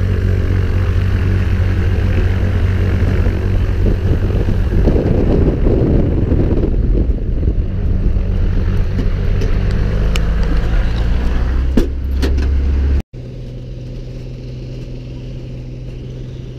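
Single-engine light aircraft's piston engine and propeller running steadily on the ground, loud through the open cabin door, with a few sharp clicks near the end. After a sudden cut, the same engine drone carries on more muffled from inside the cabin.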